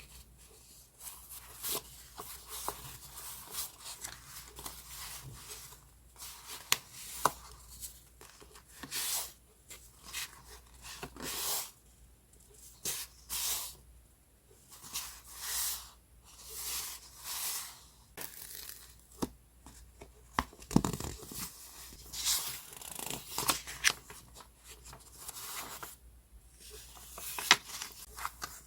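Scrapbooking paper being handled: irregular bursts of rustling and crinkling, with sharp little clicks and snaps between them.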